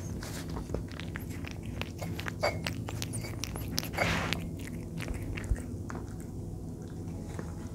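A cat eating wet food chunks in sauce from a saucer right beside the microphone: close, wet chewing and lapping with quick clicks of the jaw. The loudest moment comes about four seconds in, and the eating thins out over the last couple of seconds as the cat lifts its head.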